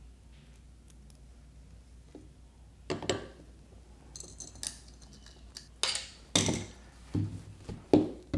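Handling noises as a metal L-bracket and 3D-printed plastic parts are fitted together and set down on a desk: sharp clicks and clinks, one about three seconds in and several close together near the end.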